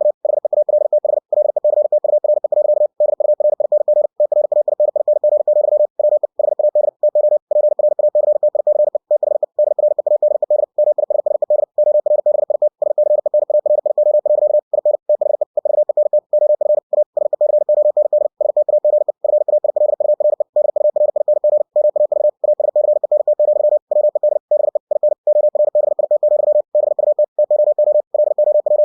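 Computer-generated Morse code (CW) sent at 60 words per minute: a single steady mid-pitched tone keyed rapidly on and off into dots and dashes, broken by short gaps between characters and words.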